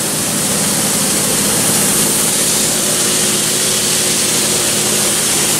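Morgan Saw multi-head band resaw running steadily with no change, a constant motor hum with an even hiss over it.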